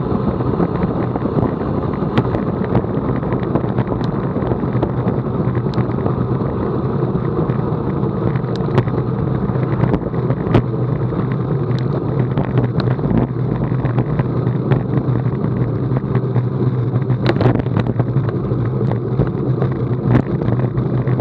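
Steady wind rush on the microphone of a bicycle-mounted camera, with tyre noise on asphalt, from a road bike on the move. Scattered sharp clicks run through it.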